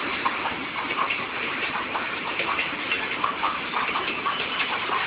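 Freight train of oil tank wagons rolling past at close range: a steady rattle of wheels and running gear with many irregular clicks and knocks.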